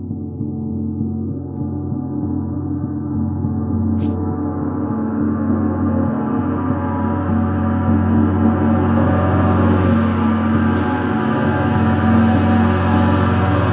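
Gong played in a continuous sustained wash, growing gradually louder and brighter as its ringing spreads into higher pitches. A brief click comes about four seconds in.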